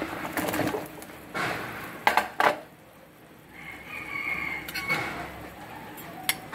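Sliced bitter melon tipped from a plate into a steel pot of boiling broth, with sharp clinks of the plate and then a metal ladle against the pot, twice loudly about two seconds in and a few lighter knocks later.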